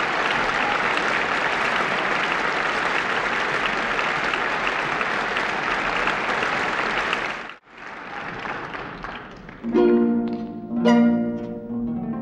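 Theatre audience applauding steadily; it cuts off abruptly about two-thirds of the way through and a fainter stretch of applause follows. Near the end the orchestra's harp comes in with plucked chords, two strong ones about a second apart.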